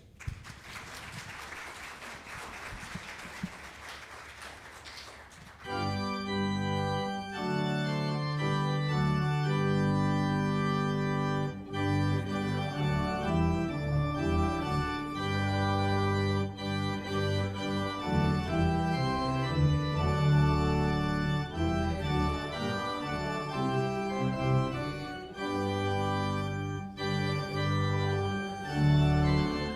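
About five seconds of dense noisy patter, then organ music entering with sustained full chords that change every second or two. The organ is the loudest part.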